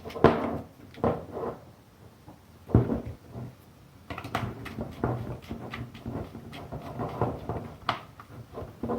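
Scattered light clicks, knocks and rustling from handling a control cable and tools while wiring it to a contactor's auxiliary terminals.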